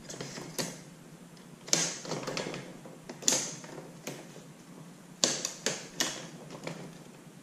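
PVC tube sliding and knocking in the metal leg tube of a Hobie kayak cart: scraping with about seven sharp clicks and knocks, as the spring snap pin is checked for locking in.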